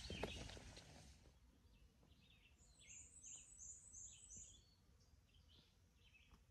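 Faint songbirds singing: a quick run of about five high, even notes and scattered lower chirps. A single footstep on the trail sounds about a quarter second in.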